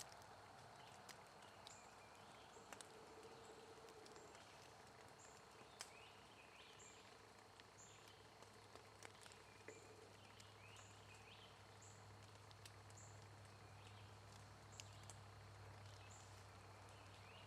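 Near-silent woods with faint small birds calling: short, high chirps repeating about once a second, and a few soft ticks.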